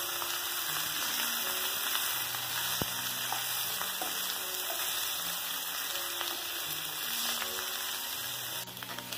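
Catla fish pieces shallow-frying in coconut oil on a medium-high flame: a steady sizzling hiss of hot oil in a nonstick pan.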